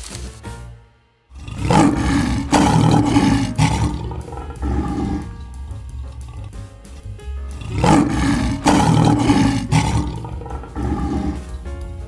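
Lion roaring in two long, loud spells, the first starting just over a second in and the second about eight seconds in, over background music.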